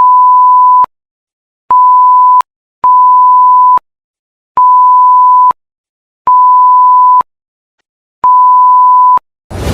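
Electronic beep tone at a single pitch near 1 kHz, sounding six times in slightly uneven pulses of about a second each, with dead silence between.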